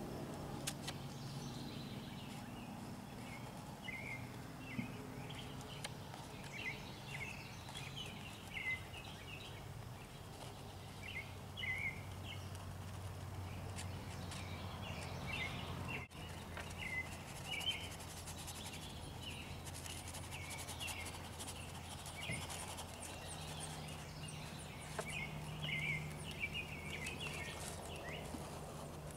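Outdoor ambience of birds chirping: many short, scattered chirps throughout, over a faint steady low hum.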